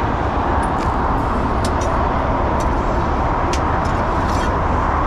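A large vehicle engine running steadily under a haze of roadway noise, with a few faint light clicks scattered through it.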